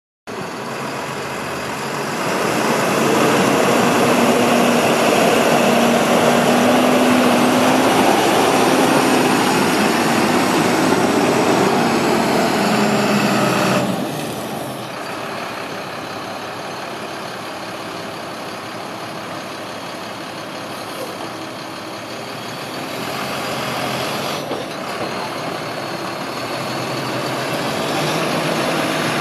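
2007 International 4300 box truck's diesel engine running as the truck drives up, loud with a steady low engine note. About halfway through the sound drops suddenly to a quieter, steady idle.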